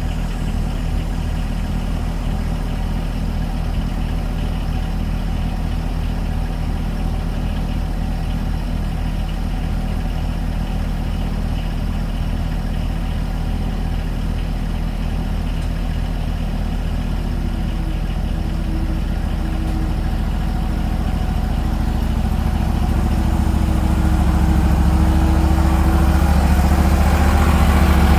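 An engine idling steadily, growing louder over the last ten seconds or so.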